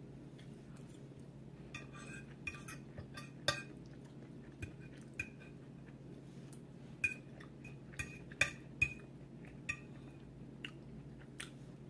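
Cutlery clinking and tapping against dishes while eating, in irregular light clinks, some with a short ring, about fifteen in all.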